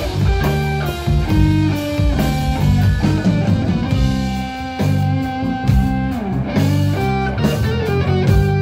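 Live rock band playing: electric guitar picking out a melody of single notes over bass guitar and a drum kit.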